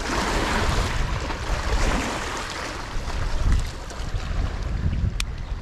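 Wind buffeting the microphone over choppy water lapping against a concrete seawall, with one light click near the end.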